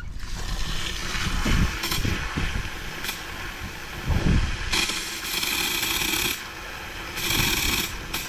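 Water spraying into the ground behind a seawall to flush out a leak, a hiss that comes in two spells, about a second and a half and then about a second near the end, each starting and stopping sharply. Low rumbling buffets come and go underneath.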